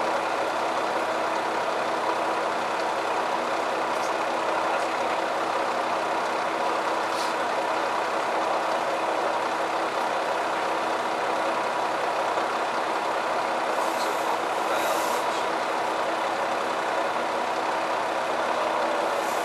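Neoplan N4426/3 double-decker bus under way, its MAN D2866LOH27 12-litre straight-six diesel and ZF 5HP602C automatic gearbox giving a steady drone, heard on board, with no gear change. A short hiss comes about three-quarters of the way through.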